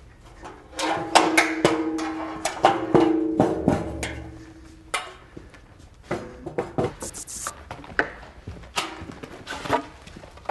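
ToughBuilt all-metal sawhorses being handled and set up, with a run of irregular clanks and knocks that is loudest in the first few seconds, when a steady ringing tone sits under it. Near the end, 2x4 boards knock as they are set on the sawhorses.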